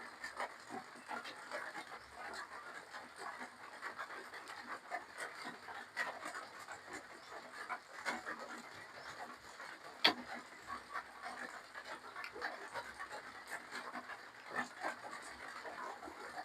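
Close-miked eating sounds: a steady run of wet chewing, lip-smacking and breathing, with one sharp click about ten seconds in.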